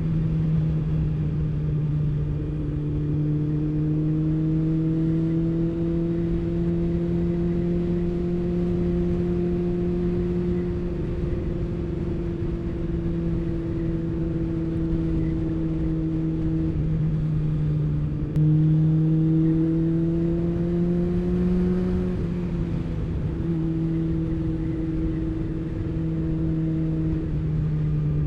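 Motorcycle engine pulling steadily at road speed, its note drifting gently up and down with the throttle, with short easings off and a sudden jump up in pitch and loudness about eighteen seconds in. A steady rush of wind and road noise runs underneath.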